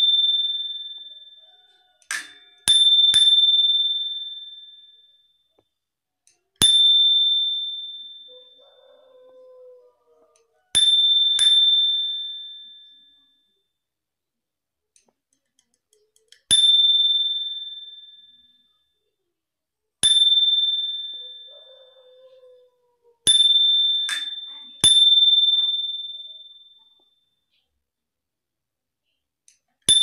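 Dome-shaped bicycle bell rung with its thumb lever: a clear, high ring struck about a dozen times, sometimes singly and sometimes as quick double dings, each ring fading out over a couple of seconds.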